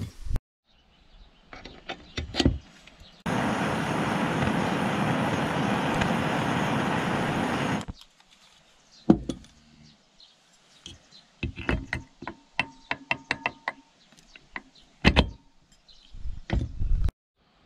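Metal engine parts clinking and knocking as a two-stroke engine's crankcase, shaft and gears are handled, with scattered knocks early and a quick run of small taps and clicks in the second half. In between, a steady rushing hiss lasts about four and a half seconds and cuts off abruptly.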